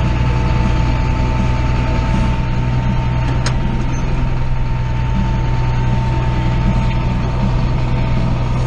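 Heavy farm machine's engine running steadily, with a constant whine over its hum and a single sharp click about three and a half seconds in.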